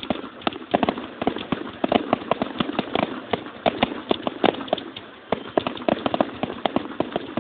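Fireworks going off in a rapid, irregular run of sharp pops and cracks, several a second, recorded on a phone.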